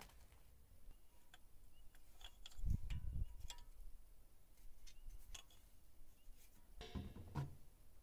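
Hand tools being handled: a combination wrench picked up and worked onto an exhaust oxygen sensor, giving faint scattered metal clicks and taps, with dull knocks about three seconds in and again near the end.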